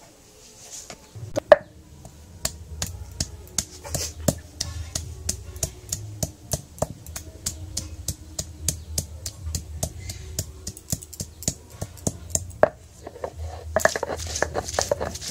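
Stone roller pounding ginger and cumin seeds on a stone grinding slab (sil-nora): a long, steady run of sharp knocks, about four a second. Near the end they give way to a rougher, denser scraping as the roller is rubbed back and forth to grind the paste.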